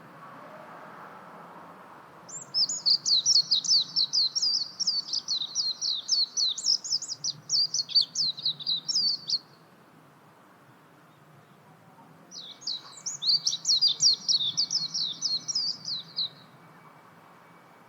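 Japanese white-eye singing: two long runs of rapid, high twittering notes, the first about seven seconds long and the second, after a short pause, about four.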